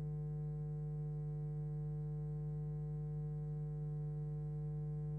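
Steady electrical hum: a low, unchanging buzz tone with a ladder of overtones, with no voices or other sound over it.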